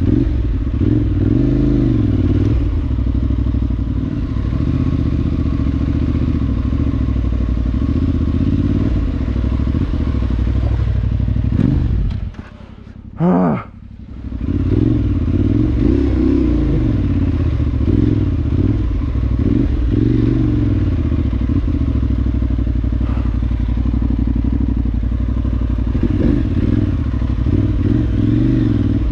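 Parallel-twin adventure motorcycle engine running under riding load off road, its revs rising and falling continually. About twelve seconds in, the sound drops sharply for about two seconds, with a brief rising rev in the middle.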